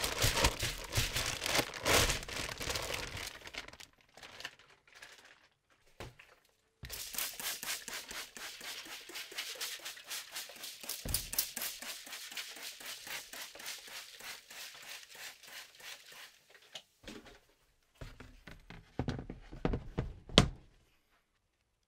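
Clear plastic grow bag crinkling and rustling as it is pulled off a colonized mushroom substrate block, with a short pause and then more crinkling. A few knocks and one sharp click come near the end.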